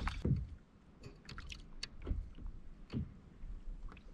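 Quiet handling sounds aboard a sit-on-top kayak: a few scattered light clicks and soft knocks over faint water and a low rumble.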